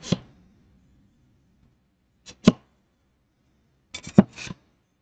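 A spatula clicking and scraping against a resin 3D printer's build plate as a print is pried off. There are two sharp clicks about two and a half seconds in, then another sharp click and a short scrape about four seconds in.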